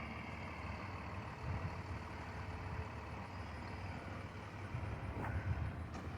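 Low, steady rumble of vehicle engines idling or running, with no siren or air horn sounding.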